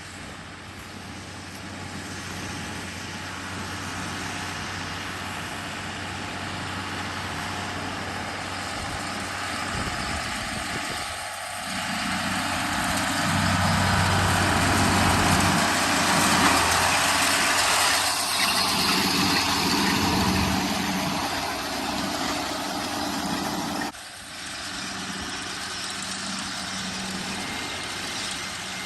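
Tractor engine running steadily while pulling a round baler. It grows louder about halfway through, then drops back suddenly a few seconds before the end.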